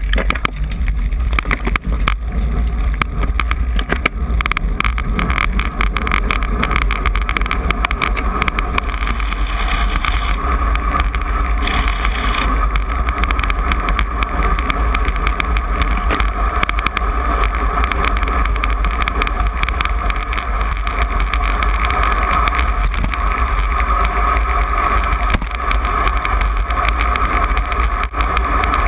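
Wind and road noise on a camera mounted at the handlebar of a road bike riding in a group: a loud, steady low rumble with a constant hum. There are many clicks and rattles in the first few seconds.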